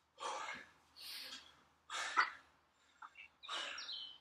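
A man breathing hard after exercise, in short heavy breaths about one a second; one breath near the end has a slight whistle.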